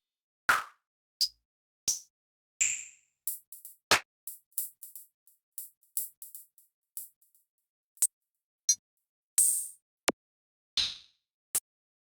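Korg Triton Extreme VST drum and percussion samples sounded one at a time: about a dozen separate single hits, each dying away before a short silence, with a quick run of short high ticks in the middle.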